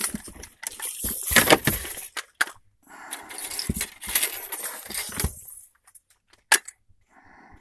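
Small metal parts jangling and clattering as they are handled, in two long stretches, followed by a couple of sharp clicks near the end.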